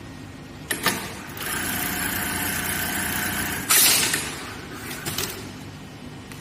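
Automatic laser pocket-welt sewing machine working through part of its cycle over a steady low hum: sharp clicks about a second in, a steady run of about two seconds, then a loud short blast of air-like hiss a little past the middle and a few smaller hisses about a second later.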